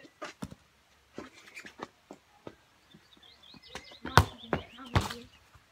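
A football being struck for a left-foot shot: scattered light taps, then two loud thumps about a second apart near the end.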